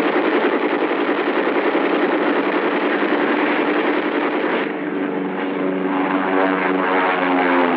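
Aircraft engine roar on a film soundtrack, a dense noisy rumble that gives way about two-thirds of the way through to sustained music with several held notes.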